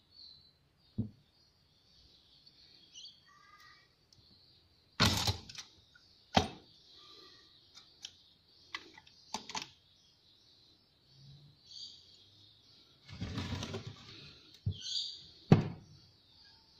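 Metal parts of a diesel injection pump being handled and set down on a wooden bench during disassembly: scattered knocks and clicks, the loudest about five seconds in, just after six seconds and near the end, with a longer, noisier stretch of handling around thirteen seconds.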